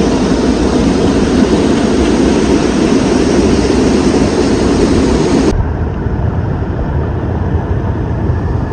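Loud, steady rush of a waterfall cascading over rock ledges. About five and a half seconds in it cuts abruptly to a softer, duller rush of water spilling over a low weir and through rocks.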